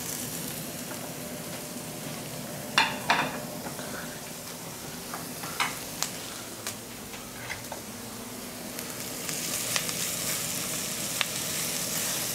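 Onions and small pieces of pork belly sizzling in butter in a pan while being stirred, with a few clicks of the utensil against the pan. The sizzle grows louder about nine seconds in.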